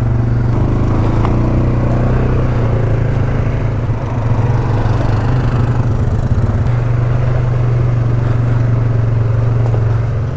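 ATV engine running steadily at moderate revs, with a brief dip about four seconds in.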